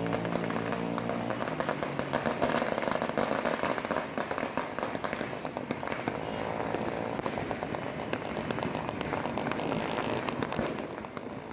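New Year fireworks and firecrackers going off in a dense, continuous stream of rapid cracks and pops.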